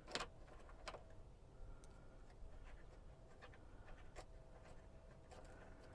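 Near silence with a few faint, light clicks and taps scattered through it, like small parts being handled.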